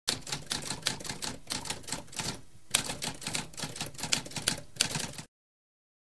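Typewriter keys being typed in a rapid run of sharp clacks, with a short pause about halfway through, stopping dead a little after five seconds.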